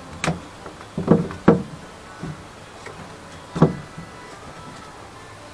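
Five sharp knocks and clunks, the sound of a tool and wood being handled on a workbench while a router is set up, each with a brief ringing tail.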